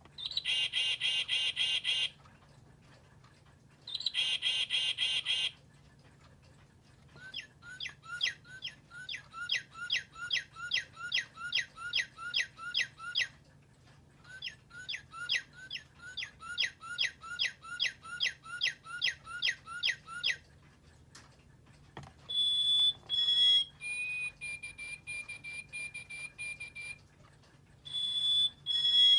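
Quartz battery-operated bird clock playing recorded bird calls through its small speaker, several different songs in turn. First come two short buzzy calls, then two long runs of rapid chirps at about three a second, then clear whistled notes near the end.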